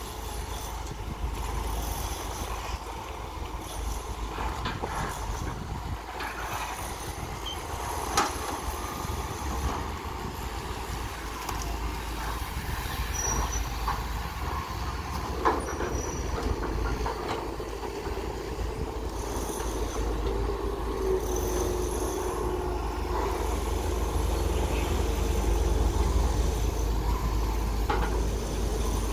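Hydraulic excavators at work, among them a CAT 320CL long-reach excavator: diesel engines running steadily with a drone, a sharp knock twice, and a whining hydraulic tone held for a few seconds past the middle.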